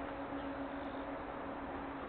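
Steady outdoor background noise with a faint, steady low hum; no distinct event.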